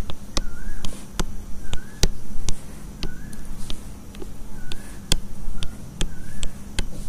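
A pen stylus tapping and sliding on a drawing surface as small circles are drawn one after another: sharp clicks as the tip touches down and lifts, and short faint squeaks as it runs round each circle, about once a second. A steady low hum runs underneath.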